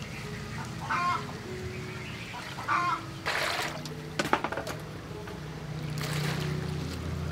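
Water splashing and trickling as cut garlic flower stems are washed and tipped from a metal colander into a metal basin of water, with a few sharp clinks of the metal bowls. The longest splash comes near the end as the stems drop into the water.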